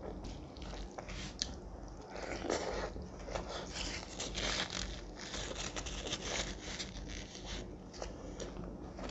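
Close-miked hand mixing of rice with curry gravy, wet squelching and crackling that is densest in the middle, along with chewing.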